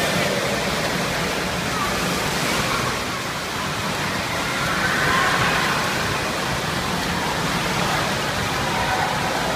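Steady rush of churning, splashing water in a water-park pool at the foot of a water slide, with children's voices faintly mixed in.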